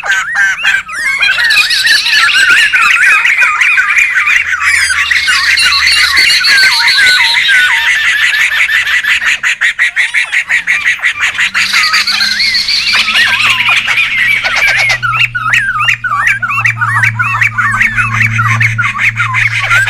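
A noisy group of laughingthrushes (poksay) calling at once: dense, overlapping chattering and squawking whistles with hardly a break. A steady low hum sits underneath in the second half.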